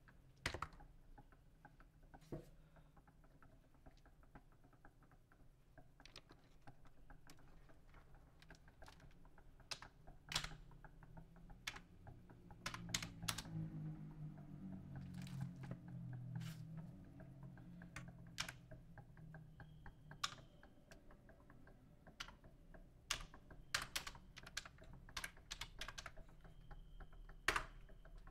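Irregular clicks and taps of a backlit computer keyboard being handled and its keys pressed. A low rumble swells and fades in the middle.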